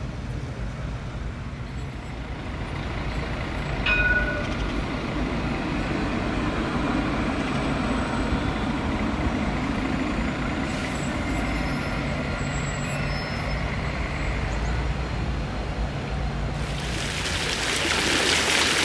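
City street sound at a tram stop: a tram and road traffic give a steady low rumble, with a brief high tone about four seconds in. Near the end, the loud splashing of fountain jets takes over.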